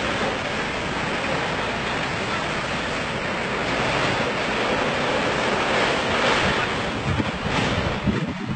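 Steady rushing hiss of a fire hose spraying water onto smouldering wreckage, with a few short knocks near the end.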